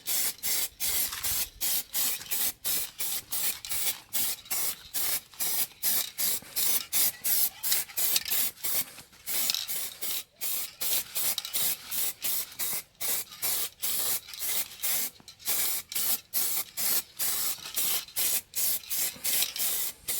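Aerosol spray paint can hissing in short bursts, about two or three a second with brief gaps between, as a light second coat of paint goes onto a wheel rim.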